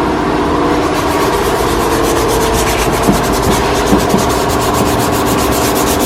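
Sandpaper wrapped around a wooden paint stick, rubbed back and forth over a painted motorcycle body panel: block-sanding to knock the surface down flat. Steady scratchy rubbing with a low, even hum underneath.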